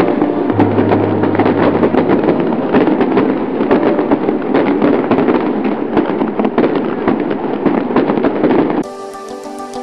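Dense crackling and popping of fireworks, a stock sound effect, with many sharp cracks packed close together. It cuts off suddenly near the end, and music with steady tones takes over.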